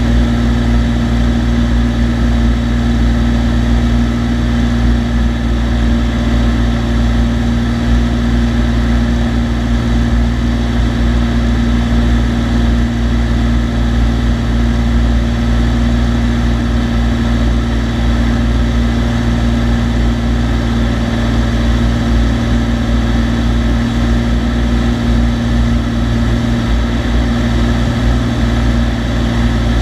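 Cessna TU-206D's turbocharged six-cylinder piston engine and propeller running steadily in flight: an even, unbroken drone with a constant hum.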